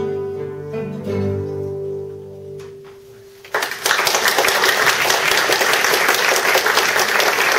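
A guitar ensemble strikes a closing chord that rings and slowly fades, then an audience breaks into steady applause about three and a half seconds in.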